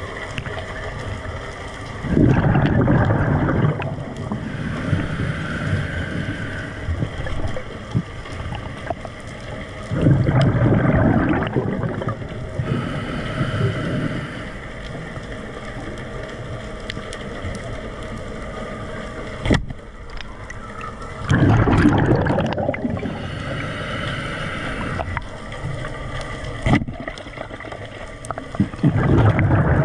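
Underwater noise from a diver's camera: a steady wash of water with loud rushing surges about every eight seconds, and two sharp knocks in the second half.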